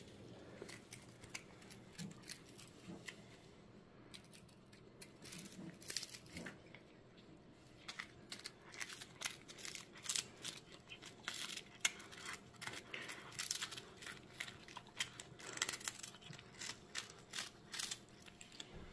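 A cat biting and chewing a dried capelin held in a hand: faint, crisp, irregular crunches, few at first and coming thick and fast from about five seconds in.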